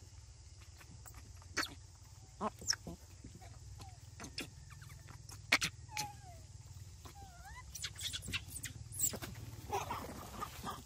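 Young macaque biting and chewing a mango held out by hand: scattered sharp bite and chewing clicks. Two short gliding animal calls come in the middle, and there is a rustle of movement through dry grass near the end.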